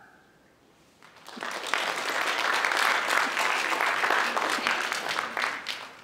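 Audience applauding: a dense burst of clapping that starts about a second in and fades out near the end.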